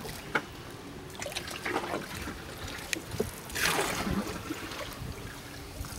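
Water lapping and trickling against the hull of a small boat adrift with its engine out of fuel, with scattered small knocks and one louder splash a little past halfway.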